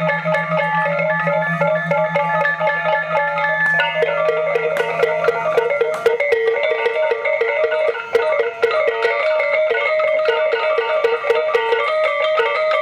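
Balinese gamelan ensemble playing fast, interlocking patterns on bronze metallophones, with sharp percussive strikes throughout. A low steady tone underneath drops out about six seconds in, and the pattern changes around four seconds in.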